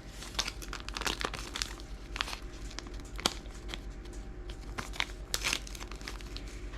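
Plastic packaging crinkling and tearing as a small Mini Brands toy is unwrapped by hand, in irregular crackles throughout.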